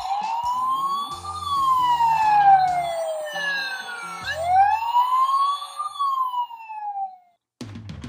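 Battery-powered electronic siren of a toy fire truck playset, set off by its sound button: a wail that rises and falls slowly in pitch twice, then cuts off suddenly near the end, over quiet background music.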